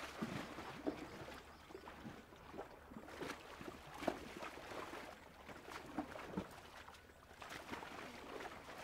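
Baby elephant rolling and kicking in a shallow muddy pool: irregular sloshing and splashing of mud and water, with a sharper splash about a second in and another about four seconds in.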